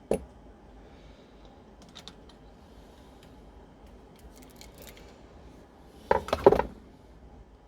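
Loose steel bicycle cassette sprockets clinking as they are handled and slid off the freehub: a sharp click at the start, a few faint clicks, then a louder metallic clatter about six seconds in.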